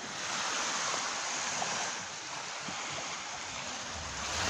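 Sea waves washing on the shore: a steady rushing surf that eases after about two seconds and swells again near the end.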